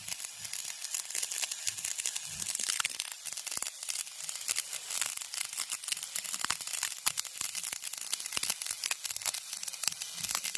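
Stick (arc) welding with an E6013 electrode on galvanized iron pipe and flange: the arc crackles steadily with dense, irregular snaps.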